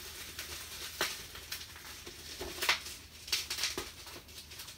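Bubble wrap and packing tape being pulled and crinkled by hand, giving scattered plastic crackles and rustles; the sharpest crackle comes about two and a half seconds in.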